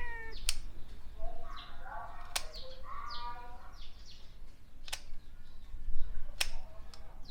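A cat's meow tails off just after the start, then small birds chirp in the background, with a few sharp clicks.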